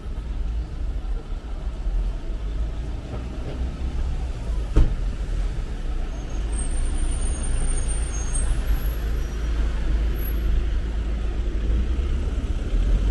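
Street traffic noise: vehicles running and passing on a narrow city street, a steady low rumble with rising tyre hiss later on. A single sharp knock comes about five seconds in.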